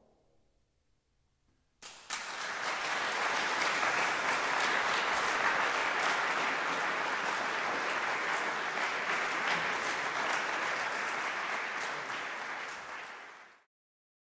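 Audience applauding, starting suddenly about two seconds in after a short hush, then dying down and cutting off abruptly near the end.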